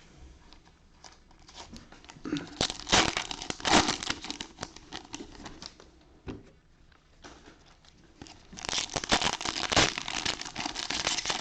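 Cellophane wrappers of football card cello packs crinkling and tearing as they are opened by hand, in two loud spells: about two seconds in and again from about eight and a half seconds, with lighter rustling between.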